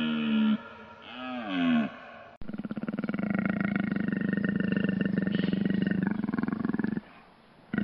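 A big cat roaring: one long, rough, pulsing roar of about four and a half seconds, starting sharply after a cut about two and a half seconds in. Before it come the end of a low drawn-out animal call and a short call that glides up and down in pitch.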